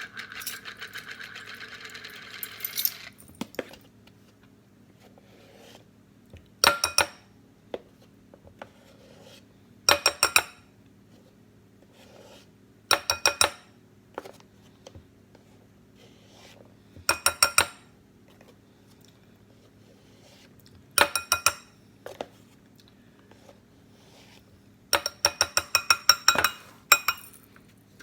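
Metal tablespoon measure clinking in quick runs of ringing taps against the side of the pot, about six runs three to four seconds apart, as spoonfuls of cornstarch are knocked off into the mix. A faint steady low hum runs underneath.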